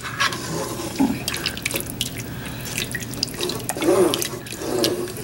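A wooden spoon stirring thick curry in a pot, working freshly added coconut milk into the sauce: continuous wet stirring and sloshing with frequent small clicks.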